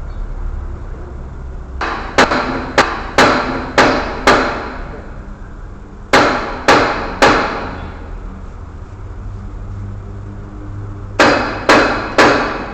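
Hammer striking metal in three bursts of ringing blows, about two a second: five or six, then three, then three.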